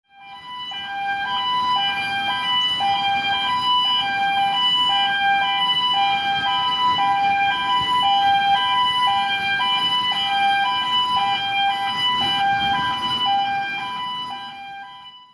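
Two-tone warning alarm of an outdoor gantry crane in operation, switching steadily between a lower and a higher note about every half second over a faint background rumble. It fades in at the start and fades out near the end.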